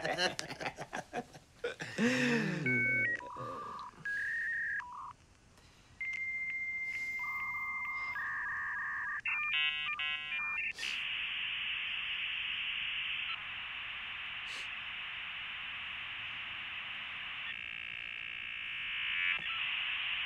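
Dial-up modem connecting to the internet. A series of steady tones is followed by a long answer tone, then a short burst of chirps about nine seconds in. About ten seconds of even hissing static follow as the connection is negotiated, swelling slightly near the end.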